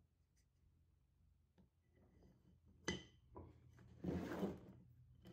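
Wooden box staves being dry-fitted by hand on a workbench: a sharp wooden knock as one piece meets another about three seconds in, then a brief scraping rub as the ring of pieces is pushed together and slid on the bench top.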